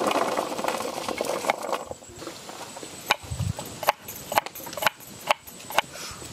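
A dense rustling noise, then a series of sharp knocks, about two a second, with one duller low thud among them.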